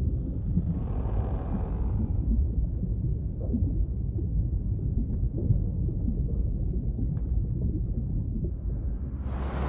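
Underwater ambience sound effect: a steady deep rumble with a few faint clicks. A loud rushing noise swells in at the very end.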